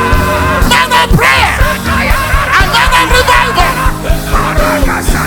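Church band music with a steady drum beat and held keyboard chords, with loud voices crying out over it: a congregation praying aloud.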